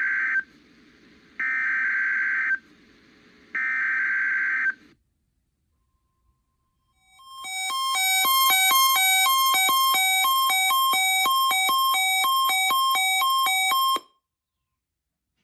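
Three bursts of the NOAA Weather Radio SAME digital header, each a harsh buzzing data tone about a second long with a second's gap between them, opening a Required Weekly Test. About two seconds later a weather alert receiver's electronic alarm beeps, rapidly alternating between two pitches about three times a second for some seven seconds, then cuts off.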